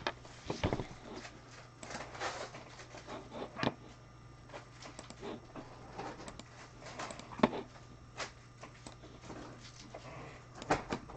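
Faint scattered clicks and taps, a slightly louder one about seven seconds in, over a steady low hum.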